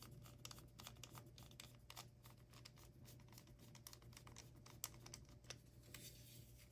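Faint, scattered clicks and taps of a small plastic power tool being handled, with one sharper click about five seconds in, over a low steady room hum.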